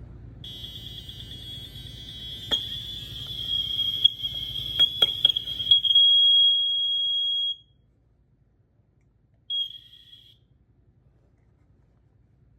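First Alert SA76RC smoke alarm horn sounding one continuous high-pitched tone for about seven seconds, uneven and pulsing at first and then steady, before cutting off suddenly, with a few sharp clicks of the unit being handled partway through. About two seconds later it gives one short beep at the same pitch.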